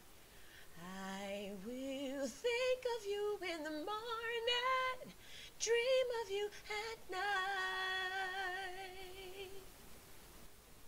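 A woman singing an R&B vocal line solo with no accompaniment, moving through quick melismatic runs and ending on a long held note with vibrato.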